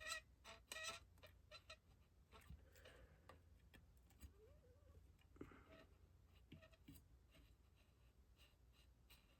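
Near silence with faint clicks and squeaky creaks of a hot glue gun being worked while glue is applied, bunched in the first second or so, then sparse.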